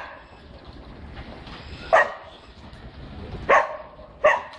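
Dog barking three short, sharp barks, the last two closer together.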